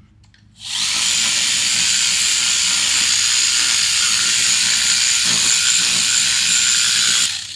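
Handheld power polisher spinning a small soft pad on an extension, buffing swirl remover into a wheel: a steady hissing run with a thin high whine. It starts about half a second in and stops shortly before the end.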